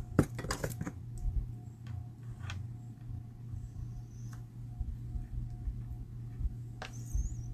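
Small clicks and taps of metal tweezers and fingertips setting small die-cut paper letters onto a card, a quick cluster in the first second and a sharper click near the end, over a steady low hum.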